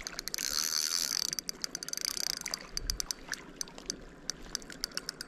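Okuma Fuel Spin 1000 spinning reel's drag clicking rapidly as a big hooked salmon runs and pulls line off it; the clicks come thick over the first two seconds or so, then more spaced out.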